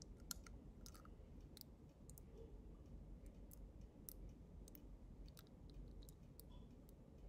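Faint, irregular clicks and snaps of a clear plastic aligner tray being pressed with the fingers onto the upper teeth, the loudest right at the start.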